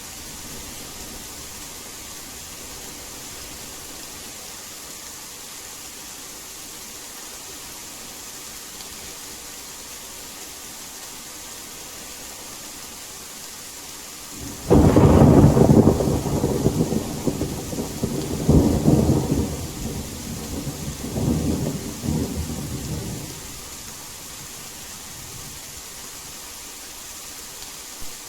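Steady rain hiss, broken about halfway through by a sudden loud thunderclap that rumbles on in three swells for about nine seconds before dying back to the rain.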